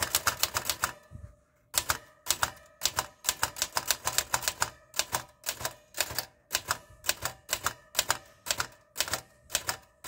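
A 1942 Remington Envoy portable typewriter being typed on, the alphabet struck key by key. Its typebars hit a freshly re-covered platen in a steady run of sharp clacks, two to three a second, with a brief pause about a second in.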